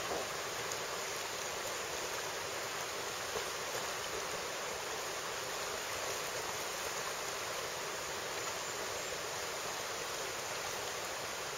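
Shallow, rocky river running steadily: an even rushing hiss of flowing water.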